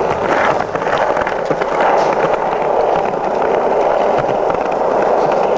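Skateboard wheels rolling on pavement, a steady rumble broken by frequent sharp clicks and clacks.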